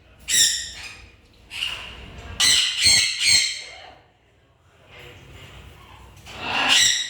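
Parrot squawking: about six loud, harsh calls, three in quick succession near the middle, then a pause before a last squawk near the end.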